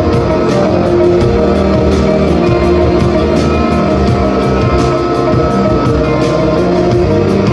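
A rock band playing loudly: electric guitars over a drum kit, with cymbals keeping a steady beat.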